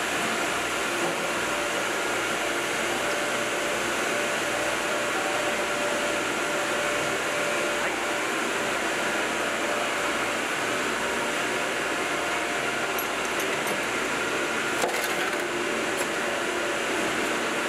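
Steady machinery and ventilation noise from sake-brewery rice-processing equipment, with a few light clicks and one sharp knock about fifteen seconds in.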